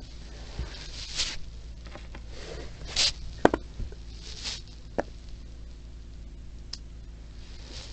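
Plastic parts of a Plarail toy train being handled: a few short rustles and sharp clicks, the loudest click about three and a half seconds in, over a steady low hum.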